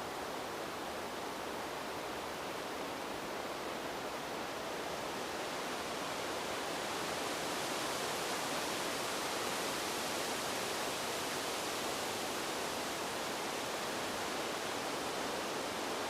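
Wind blowing as a smooth, steady hiss, swelling into a stronger gust around the middle.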